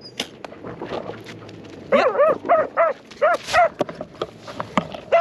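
Pig-hunting dog barking in a quick run of about six short barks, starting about two seconds in, over rustling and scattered clicks.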